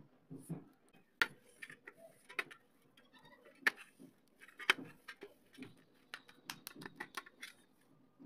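Hands kneading damp clay into a lump on a steel plate: soft squishing with sharp clicks and taps of clay and fingers against the metal, coming in a quick run near the end.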